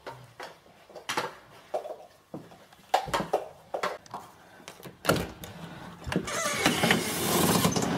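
Clicks and knocks of handling, then an interior door's metal lever handle is pressed and the door is pushed open about five seconds in. A louder rush of noise follows for the last two seconds.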